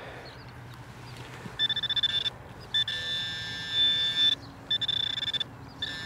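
Handheld metal-detecting pinpointer sounding a high electronic buzz in repeated bursts of rapid beeping, starting about a second and a half in, as it picks up a metal target in the dug hole.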